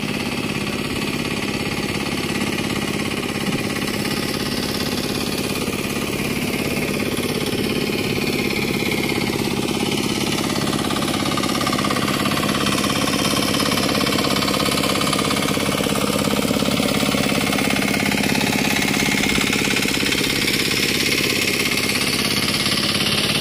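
Engine of a turtle tiller (pagong hand tractor) running steadily and loudly while it works a flooded rice paddy.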